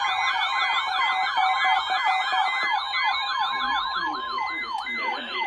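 Several electronic siren tones sounding at once. A fast yelp sweeps up and down about five times a second, then slows to about two sweeps a second near the end. Over it run a higher, slower-sweeping tone, a steady tone that stops shortly before the end, and a rapidly repeating beep.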